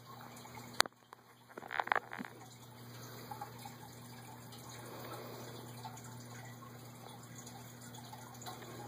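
A small plastic figurine and earbud cord being handled by hand: one sharp click about a second in and a few softer clicks a second later, then faint rustling over a steady low hum.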